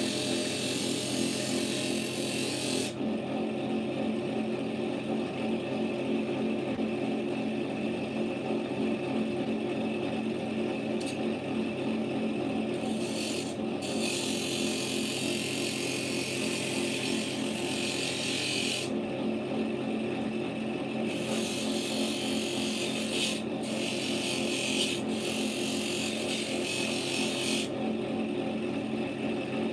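Bench drill press running at high speed with an abrasive attachment in the chuck, a steel gun part pressed against it in spells: a steady motor hum under a hissing, rasping grind that comes and goes as the metal touches the wheel. The abrasive is stripping rust and deep scratches from the steel.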